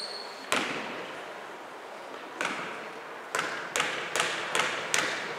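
Basketball bouncing on a hardwood gym floor, echoing in the hall: one bounce, another about two seconds later, then five even dribbles about 0.4 s apart, as a player dribbles at the free-throw line.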